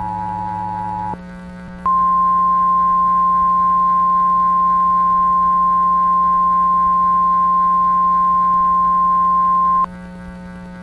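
Synthetic EAS two-tone attention signal cutting off about a second in. After a short gap comes a single steady, slightly higher alert tone of the NOAA Weather Radio kind, which lasts about eight seconds and stops shortly before the end. A low steady hum runs underneath.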